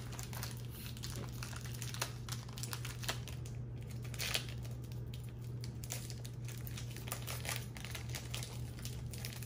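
Thin plastic snack wrapper crinkling and crackling irregularly as fingers pick at it and work to tear it open, over a steady low hum.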